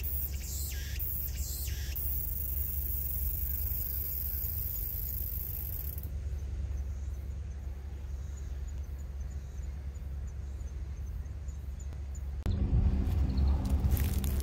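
Outdoor summer ambience: insects buzzing in a high, steady drone for the first few seconds, then faint, repeated high chirps, over a steady low rumble. Near the end a louder, low, steady hum starts abruptly.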